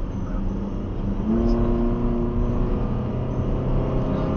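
Car engine and road noise picked up by a dash camera, with a steady hum that steps up in pitch about a second in.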